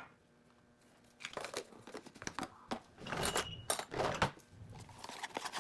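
Irregular rustling, crinkling and light clattering of kitchen items being handled off-camera, starting about a second in.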